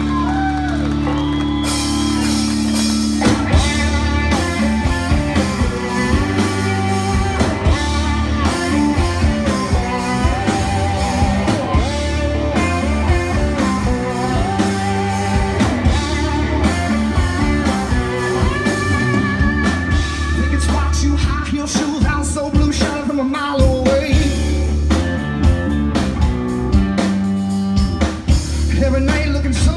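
Live blues-rock band playing loud: electric guitars, bass and drum kit. It opens on a held chord, and the full band with drums comes in about three seconds in.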